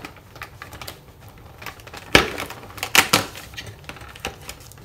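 Cardboard advent-calendar door being pushed open and the item inside pulled out: a run of light clicks and scrapes of card and packaging, with sharper cracks about two and three seconds in.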